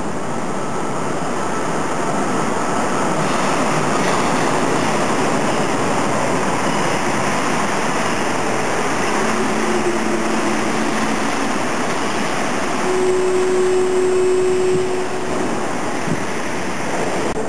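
Rubber-tyred Paris Métro line 4 train pulling into the station and slowing to a stop: a steady rushing rumble that swells as it arrives, with two brief whining tones in the second half as it brakes.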